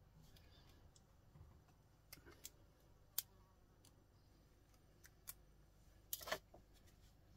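Small pliers clicking against computer cable connectors as gold pins are pulled out: a handful of separate sharp clicks, the loudest about three seconds in, and a quick cluster of clicks near the end.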